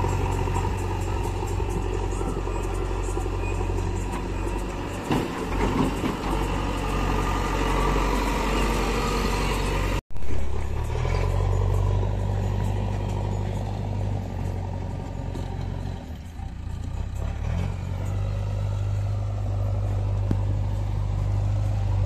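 Diesel engines of a JCB 3DX backhoe loader and a Massey Ferguson tractor running steadily with a low hum. A few knocks and scrapes of broken bricks and earth come about five seconds in.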